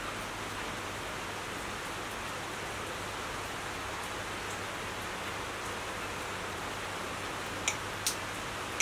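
Steady, even hiss, with a few sharp clinks of tableware near the end.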